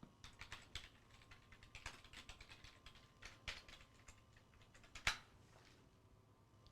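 Faint typing on a computer keyboard: a run of quick, irregular keystrokes, with one sharper click about five seconds in.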